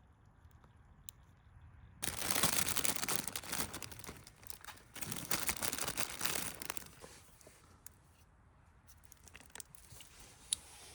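Plastic packaging being torn open and crinkled, in two bursts of a couple of seconds each, followed by a few light clicks and rustles.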